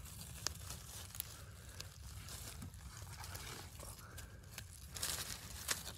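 Faint rustling and crunching of dry forest-floor leaf litter and twigs, with a few small sharp snaps and a denser bout of rustling near the end.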